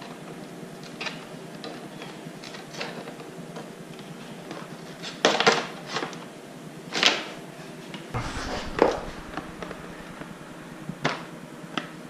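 Hard plastic windshield and body panels of a snowmobile being handled and worked loose: scattered clicks and knocks, with a few sharper knocks between about five and nine seconds in.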